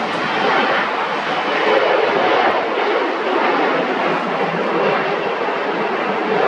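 Airplane engines passing, a steady loud rushing noise that builds slightly about two seconds in.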